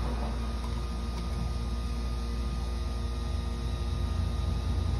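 Steady low machine hum with faint steady tones above it, even throughout.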